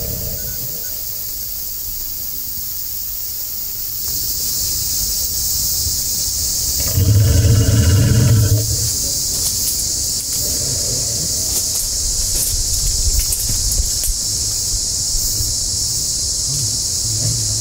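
Steady high buzzing of forest insects. Over it, a louder low pitched hum swells about seven seconds in for a second and a half, then comes back more faintly a few seconds later.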